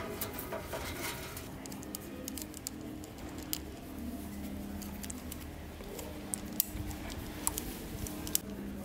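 Scattered small clicks and rustles of gloved hands handling electrical wires and a plastic screw terminal block, over faint low steady tones.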